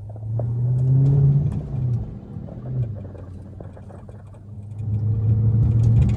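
Dodge Charger SRT's V8 engine heard from inside the cabin, pulling up in revs as the car accelerates through the first second or so, then easing off. It swells again for a second pull near the end.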